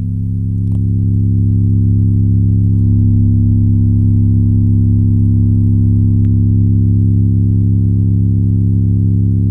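Subwoofer with a homemade voice coil playing a steady, loud low bass tone with overtones, driven at maximum amplifier power with the clip limiter off so that the coil heats up under load. The tone grows louder about a second in.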